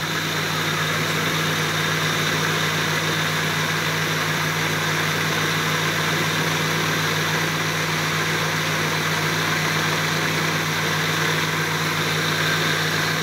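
Electric blender motor running steadily at an even pitch, blending bird's eye chilies, garlic and cooking oil into a coarse sambal paste.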